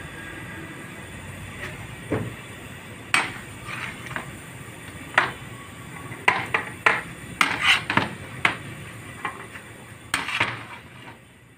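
Long-handled metal ladle knocking and scraping against a large aluminium cooking pot as cooked rice is scooped and turned. The knocks come one at a time at first, then in a quick cluster in the middle, over a low steady rumble.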